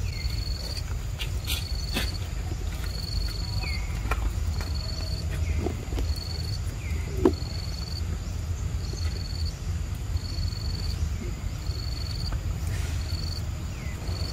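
Forest ambience: a short high chirp repeats about once a second over a steady low rumble, with a few fainter, lower falling chirps. A single short knock comes about halfway through.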